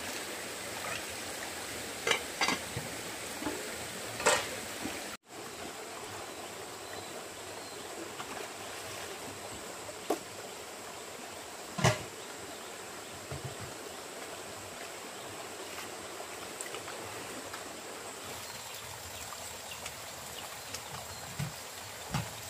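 Steady rush of running water with a thin, steady high tone over it. A few sharp knocks break in, the loudest about twelve seconds in, and the sound cuts out for an instant about five seconds in.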